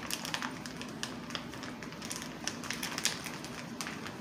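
Large zip-top plastic bag of ice being pressed shut along its seal by the fingers: a run of small, irregular clicks and crackles of the plastic zipper and bag.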